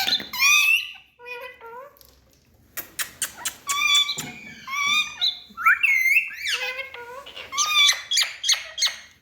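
Indian ringneck parrots chattering: short squawks, whistled chirps and clicks in quick runs. The calls thin out briefly about a second in, then come thick again for the rest of the stretch.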